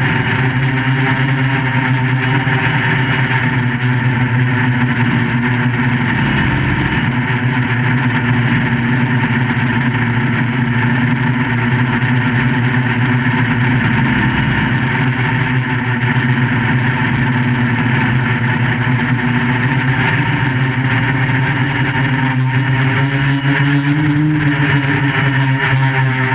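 QAV400 quadcopter's motors and propellers running steadily in flight, the pitch rising and falling slightly a few times with throttle.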